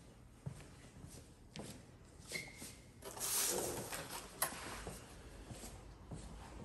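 Light knocks and shuffling from handling a portable inverter generator on a wooden display stand, with a sharp click a bit past the middle. The generator is not running.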